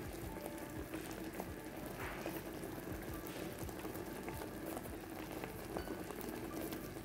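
Cream sauce bubbling and popping steadily as it simmers with chicken escalopes in a frying pan.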